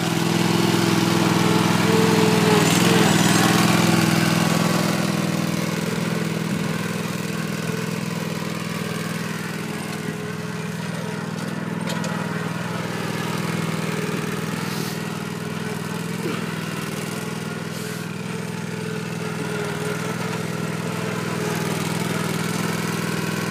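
Zero-turn riding lawn mower's engine running steadily while it is driven along, a little louder for the first few seconds; it is not yet at full throttle.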